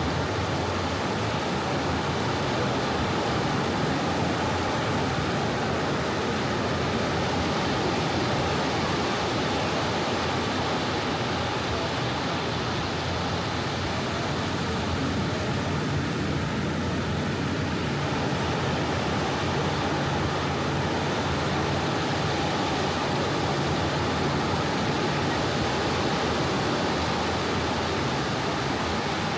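Soft sea waves washing on a beach, an even, continuous hiss with no distinct breaking crashes.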